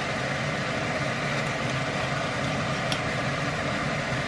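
A steady low hum with an even hiss over it, and one faint click about three seconds in.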